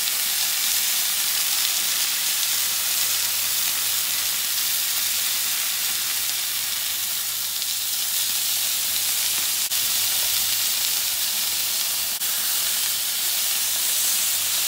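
Rump steaks sizzling steadily in a hot cast-iron grill pan with rosemary and thyme sprigs, searing at high heat as they are turned with tongs.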